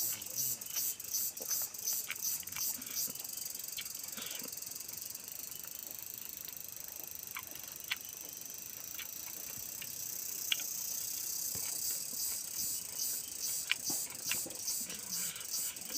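Close-up eating sounds from a man eating rice and curry by hand: chewing, lip-smacking and scattered small clicks. Behind them a high-pitched hiss pulses about three times a second, settles to a steady hiss in the middle and starts pulsing again about twelve seconds in.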